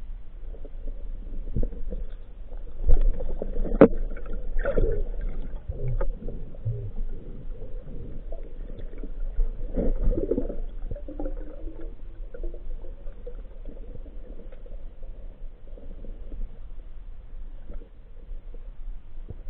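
Muffled underwater sound through a diving camera's housing: dull water movement and rumble, with scattered knocks, the sharpest a few seconds in.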